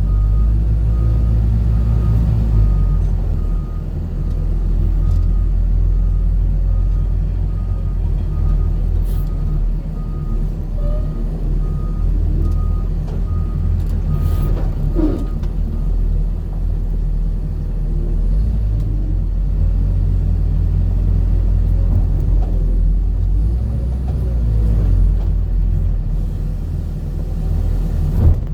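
A road vehicle running with a steady low rumble. A regular series of short high beeps repeats over it and stops about halfway through.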